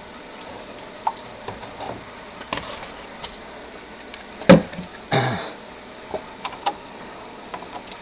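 Water being poured from a cup into the plastic condensate drip pan of a heat pump's indoor air handler: faint trickling and splashing with scattered light knocks of the cup against the unit. The sharpest knock comes about halfway through, followed by a short splash.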